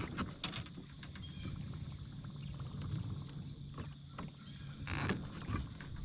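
Fishing kayak on the water: a few scattered knocks and handling noises from gear on the hull, the sharpest about five seconds in, over a steady low hum.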